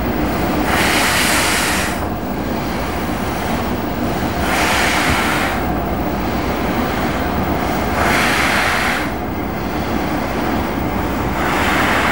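LNER K4 class three-cylinder 2-6-0 steam locomotive moving slowly with its cylinder drain cocks open: steam hissing in four bursts about three and a half seconds apart over a steady low rumble.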